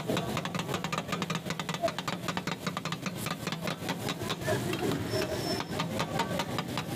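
Two flat metal spatulas clacking and scraping rapidly against a large tawa as sliced onions fry in oil, several strikes a second, over a steady low hum.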